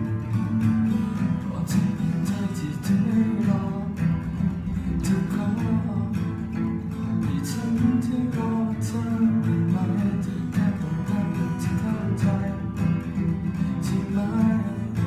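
Acoustic guitar strummed and picked steadily, playing a Thai pop song.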